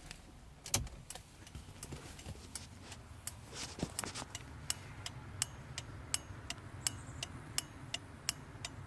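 New turn signal flasher relay in a 1978 Mercury Zephyr clicking as the signal flashes: a few uneven clicks at first, then a steady ticking about three times a second.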